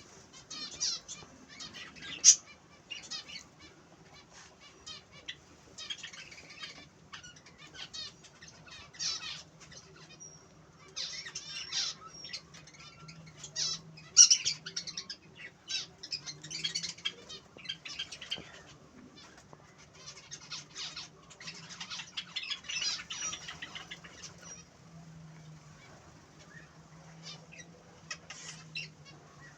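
A group of small pet finches in a cage or aviary, chirping and calling in short, busy bursts, with a few louder calls about two seconds in and near the middle. A faint steady low hum runs underneath.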